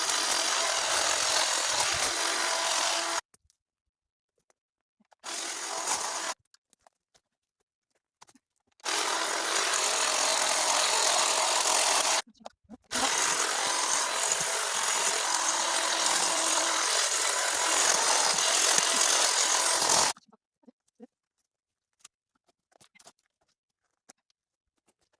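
Power tool cutting through branches and wood in four bursts, each starting and stopping abruptly, the last and longest running about seven seconds. After about twenty seconds only a few faint ticks remain.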